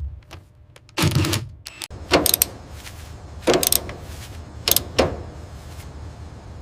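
A series of sharp mechanical clunks and swishes, about five in all, over a low steady hum that sets in about two seconds in.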